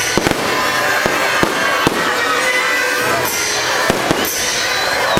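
Fireworks bursting in a string of irregular sharp bangs, heard over the show's accompanying music.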